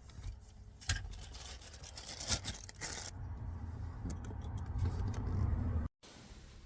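Clicks and scrapes of a diagnostic lead being handled and plugged into a car, over a low rumble that grows louder, then cut off abruptly near the end.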